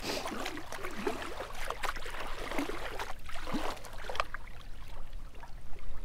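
Shallow water sloshing and gurgling around a big blue catfish held at the shoreline while a hand is worked down its throat to burp trapped air out of its swollen belly. The splashing settles down about four seconds in.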